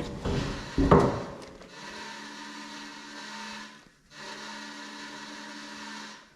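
A power tool's motor running in two steady runs of about two seconds each, stopping cleanly between them, after a sharp knock about a second in.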